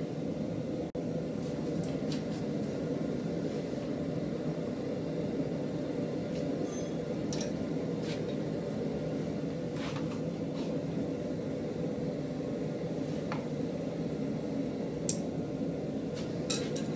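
Steady mechanical hum of shop machinery running, with a few faint metallic clicks and a short clink near the end.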